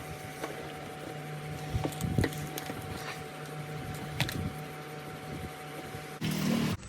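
A steady hum with a few light clicks and taps over it; near the end it cuts to a louder, different sound.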